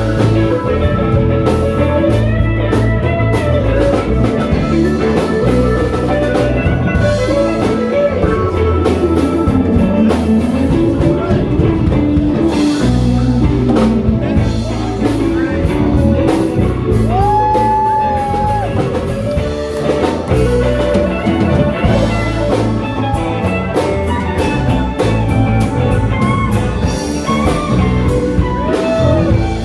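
Live band playing a bluesy song on drum kit and guitar.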